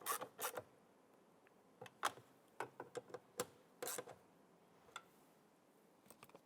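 Ratchet clicking as the 7 mm screws holding the door handle assembly are snugged down, stopping about half a second in. After that, a few scattered light clicks and taps.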